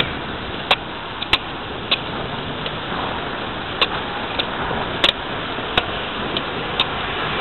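Bicycle rolling along a town street: steady tyre and wind noise, broken by about a dozen irregular sharp clicks and rattles as the bike goes over bumps in the pavement.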